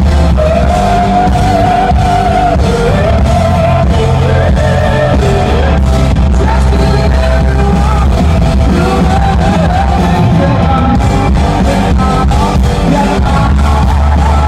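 Live rock band playing, with a singing voice over heavy bass and drums, recorded loud and distorted.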